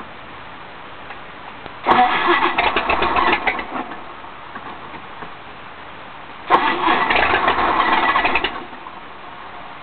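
Sutphen jet boat's engine, run out of water, firing in two loud bursts of about two seconds each, a few seconds apart, each starting abruptly and dying away.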